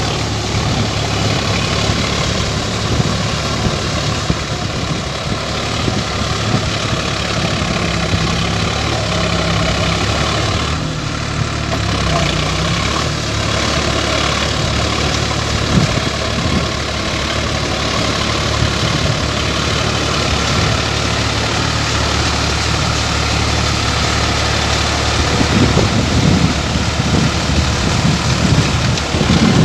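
Sonalika tractor's diesel engine running steadily, growing a little louder and rougher over the last few seconds.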